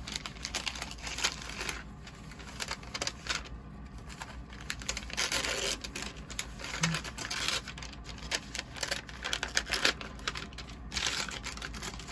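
Wrapping paper being torn and crumpled as a present is unwrapped, in irregular rustling bursts and crackles.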